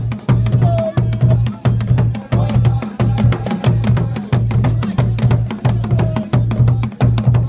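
A large hand-beaten drum played in a fast, steady rhythm for dancing, its deep strokes closely packed, with voices singing or calling over it now and then.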